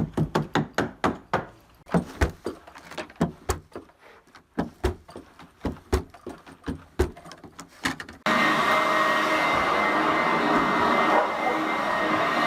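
A quick run of sharp thumps, about three or four a second, from carpet-laying work. About eight seconds in it cuts abruptly to a steady motor whir with a faint high whine.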